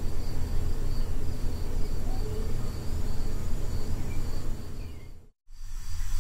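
Boosted recorder background noise: a steady low rumble and hiss, with a faint high chirping repeating about twice a second. The sound cuts out suddenly a little after five seconds in, and different noise comes in just before the end.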